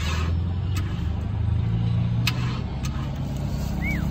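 A Kia Sephia's engine turning over on its starter, powered by a jump pack: a low, uneven drone without catching, with a few sharp clicks. A short rising-then-falling chirp sounds near the end.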